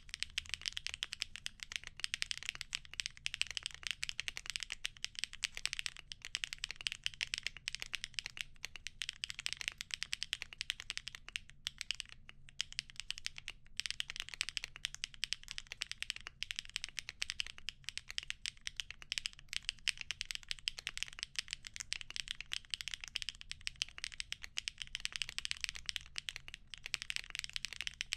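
Continuous typing on a mechanical keyboard fitted with HMX × Evoworks Amber linear switches (factory-lubed POM stems in polycarbonate/nylon housings) mounted on a polypropylene plate. It is a dense run of keystroke clicks, with two short pauses about twelve and fourteen seconds in.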